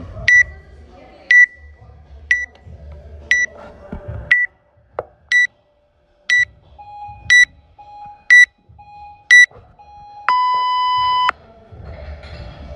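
Gym interval timer counting down to the start of a workout: ten short high beeps one second apart, then one long beep of about a second that signals go. In the last few seconds a fainter, lower beep falls between the high ones.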